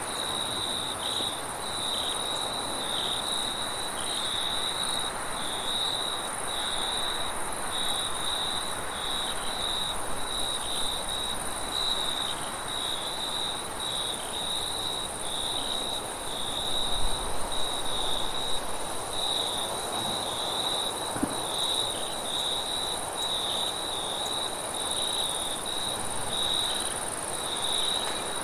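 Crickets chirping in a steady, continuous chorus, with a second, higher-pitched insect trill above them, over an even hiss of wind. A low gust of wind rises briefly a little past halfway.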